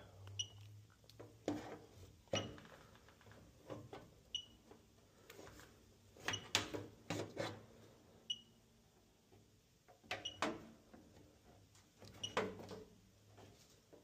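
Fieldpiece DRX3 refrigerant leak detector beeping once about every two seconds, a short high chirp at its steady slow rate, while its probe is moved around an evaporator coil with scattered clicks and knocks from handling. A faint low hum runs underneath.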